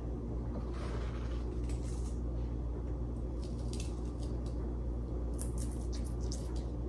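Salt pinched between the fingers and sprinkled into a plastic blender cup of pine nuts: a scattering of faint, soft ticks and rustles of falling grains. A steady low hum runs underneath.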